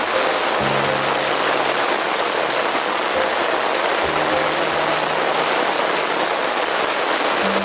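Steady heavy rain falling, an even unbroken hiss of many drops. A faint low hum comes and goes twice underneath.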